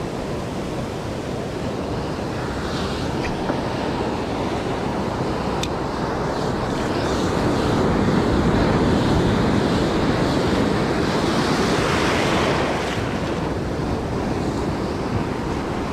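Ocean surf washing in and foaming over the shallows, a steady rush of water that swells louder for several seconds past the middle and then eases, with wind buffeting the microphone.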